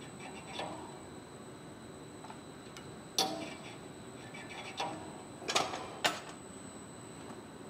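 Gym equipment in use: about five sharp clicks and knocks at uneven intervals, the loudest near the middle, over a faint steady high-pitched whine.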